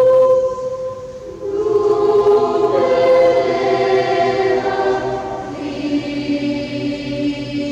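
Children's and youth choir singing long sustained notes in a large cathedral. A held chord fades just after the start. After a short pause the voices come in again about a second and a half in and move through several long notes, settling lower near the end.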